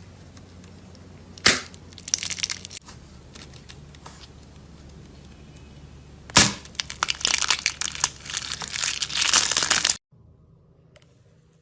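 Crisp material being crushed, crackling and crunching in two bouts. Each bout opens with a sharp snap, one about a second and a half in and one about six and a half seconds in; the second bout lasts some three and a half seconds and cuts off suddenly.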